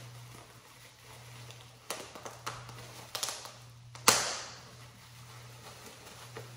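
Plastic bag and bubble wrap crinkling and rustling as a packed model horse is unwrapped by hand, in short crackles. One sharp crack about four seconds in is the loudest sound.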